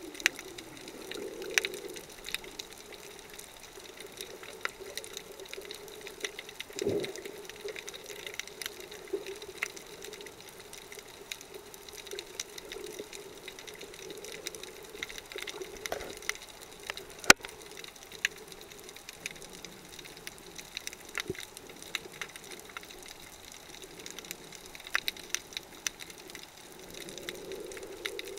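Underwater reef ambience heard through the camera: a steady muffled hum with scattered sharp clicks and crackles, two brief whooshes, and one louder sharp click about two-thirds of the way through.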